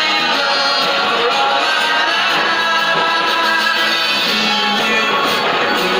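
Music with singing voices, steady and loud throughout.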